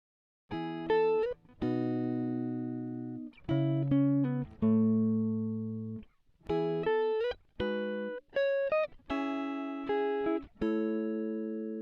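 Solo guitar music: a slow melodic line of single sustained notes with pitch bends, played in short phrases with brief gaps between them. It begins about half a second in.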